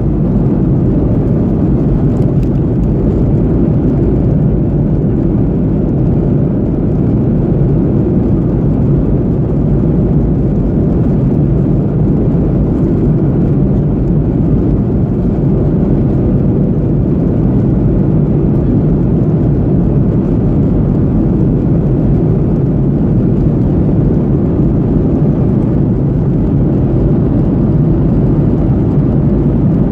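Steady low rumble of engines and rushing air inside a Boeing 737 airliner's cabin in flight, even and unchanging.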